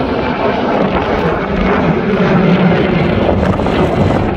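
Engine noise of a passing airplane, a steady dense rush that swells a little around the middle, with wind rumbling on the microphone.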